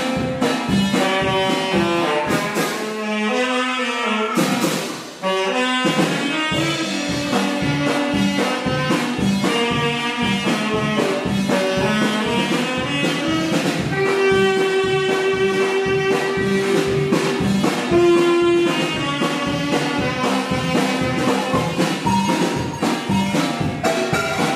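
Brass band music with saxophones and trumpets over a steady beat, with a brief drop about five seconds in.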